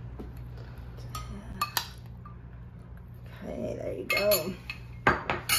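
A metal spoon clinking against glass bowls as blueberries are spooned and tipped into a glass trifle bowl. There are a few sharp clinks early on and a louder cluster near the end.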